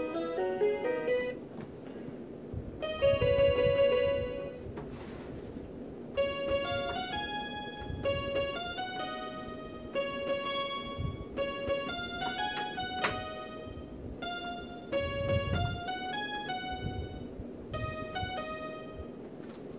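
Electronic keyboard played by hand: a quick run of notes, a loud chord held for about a second and a half, then a melody picked out one note at a time with uneven pauses.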